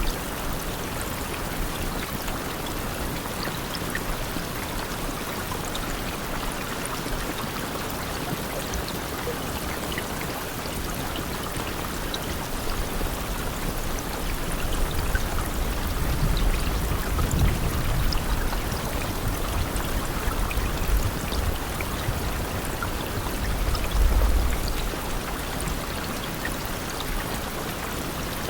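Steady rain: a dense, even hiss with scattered drop ticks. A low rumble swells in the second half, loudest about two-thirds of the way through and again near the end.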